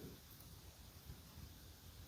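Near silence: a faint low rumble only.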